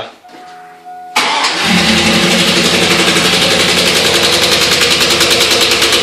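2002 Chevy Silverado's 5.3-liter V8 starting about a second in, then running with a loud, rapid, even knock. The owner takes the knock for a broken connecting rod or wrist pin, not a lifter.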